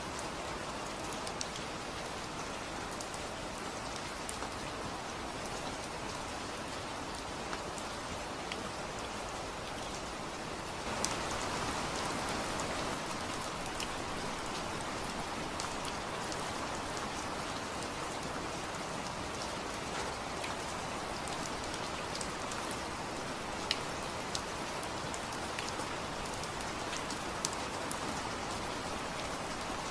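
Steady rain falling, with individual drops ticking on a surface. The rain grows a little heavier about eleven seconds in.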